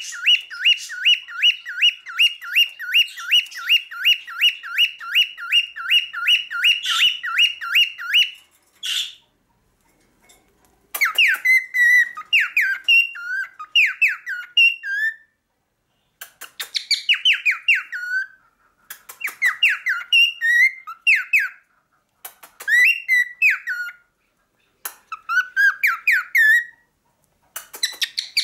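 Male cockatiel singing. It opens with a fast run of repeated chirps, about four a second, for some eight seconds. After a short pause come bursts of warbling, gliding whistled phrases separated by brief silences.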